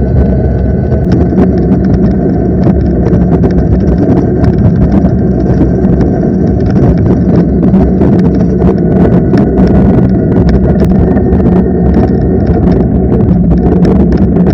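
Electric bike riding at speed: loud, steady wind rush on the microphone and road noise, with faint steady whine tones from its 3000 W rear motor and scattered short clicks.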